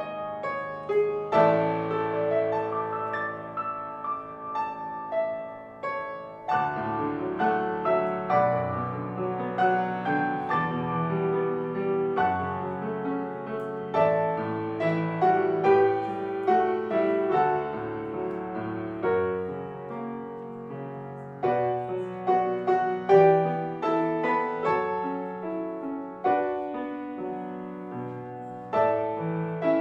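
Piano playing, with chords and melody notes struck one after another.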